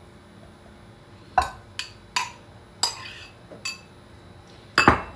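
Metal spoon clinking and scraping against a ceramic bowl and clay tagine pot while grated tomato is spooned out: about five sharp clinks, then a louder clatter near the end.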